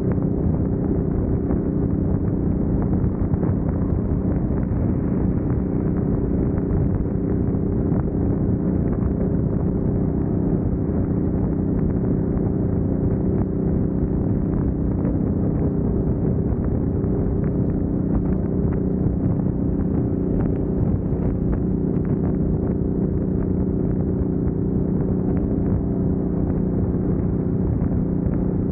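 Kawasaki Vulcan 900 Classic's V-twin engine running steadily at highway cruising speed, over a constant rush of wind and road noise.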